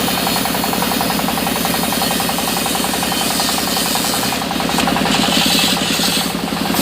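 Sawmill saw machinery running steadily with a fast, even pulsing beat; a higher hiss joins about four and a half seconds in.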